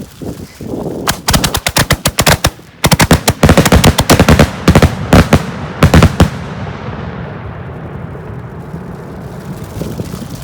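Fireworks going off in a rapid volley: dozens of sharp bangs packed close together over about five seconds, the loudest near the middle, then a fading rumble after the last report.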